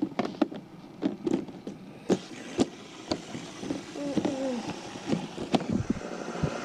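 Plastic toy race track and die-cast cars being handled and set in place: irregular clicks and knocks.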